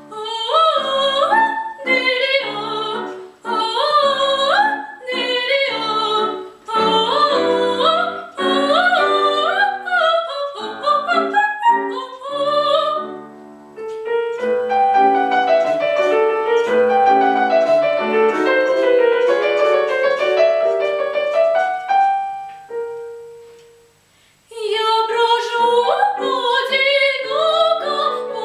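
A girl's solo voice singing a classical song with piano accompaniment. About halfway through the voice stops and the piano plays alone for several seconds, then the music thins to a short pause and the singing with piano comes back near the end.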